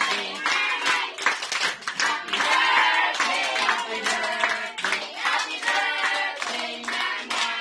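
A group of people singing a birthday song and clapping along, with many hand claps.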